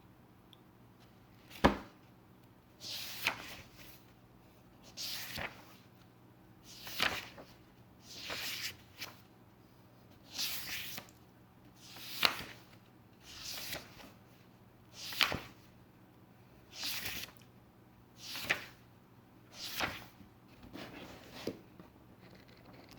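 Pages of a paper book being turned one by one, a swish for each page about every one and a half to two seconds, some ending in a light snap. A single sharp snap, the loudest sound, comes about two seconds in.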